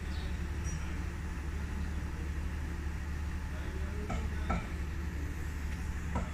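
A steady low hum, with two or three light metallic knocks a little after four seconds in, as the parts of the opened air brake booster are handled.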